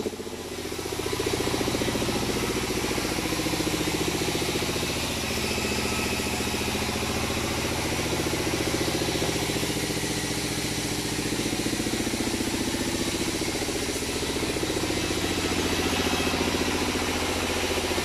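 Sawmill engine running steadily: a low drone with a rapid, even firing beat and a hiss of machinery above it.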